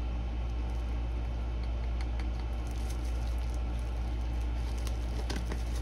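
Steady low hum, with a few faint light clicks.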